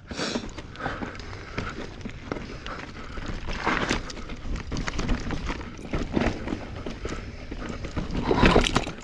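Specialized Stumpjumper EVO mountain bike rolling over loose dirt and rocks, with tyres crunching and the bike rattling in irregular knocks. The heaviest jolt comes near the end.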